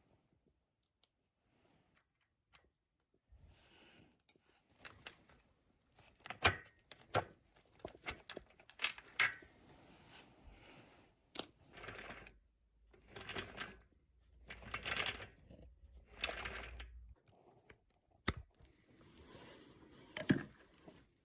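Small hard parts being handled: a run of sharp metallic clicks and taps mixed with rubbing or scraping strokes about a second long, starting a few seconds in.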